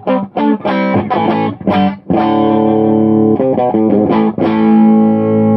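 Electric guitar played through a modified Filmosound amplifier with its presence circuit switched on: quick picked notes, a chord held from about two seconds in, a few more quick notes, then a chord left ringing near the end.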